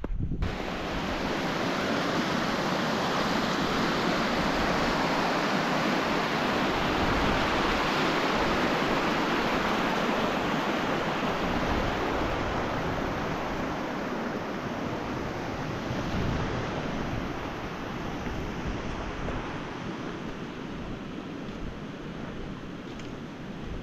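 Steady rushing of water that cuts in abruptly at the start and grows a little fainter over the last several seconds.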